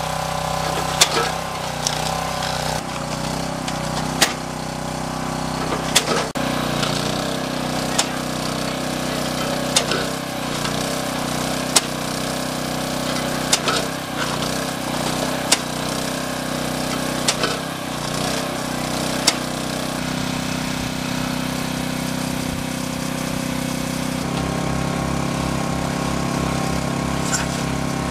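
Engine-driven firewood saw-and-splitter running steadily, with sharp knocks and cracks about every two seconds as logs are cut and split. The knocks stop and the engine note changes about twenty seconds in, settling into a low even throb near the end.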